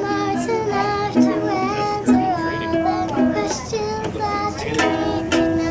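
A young girl singing a song, accompanied by a child strumming a ukulele.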